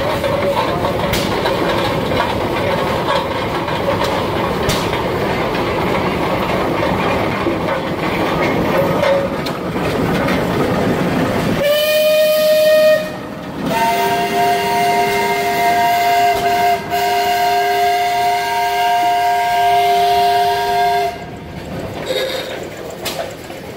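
Case steam traction engine running in a steady noisy clatter. About twelve seconds in it sounds its steam whistle: first a short single-pitched blast, then, after a brief break, a long chord-like blast of about seven seconds.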